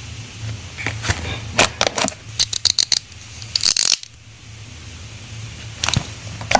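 Small stationery items being handled and packed: a run of sharp clicks and taps of hard plastic and metal pieces, then a short rustling burst that cuts off abruptly, and one more click near the end.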